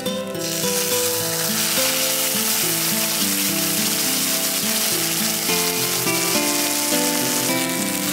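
Savory green-onion pancake sizzling in a hot black skillet: a steady hiss that starts about half a second in and eases off near the end.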